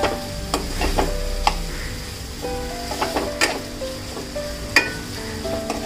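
Chopped onions sizzling and frying in hot oil in a non-stick kadai while a steel slotted ladle stirs them, with repeated scrapes and clicks of the ladle against the pan. This is the onion being softened in the tempering.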